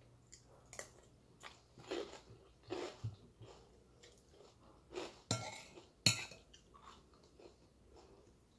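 A person chewing and crunching food close to the microphone, in irregular bites, with a sharp, loud crack about six seconds in.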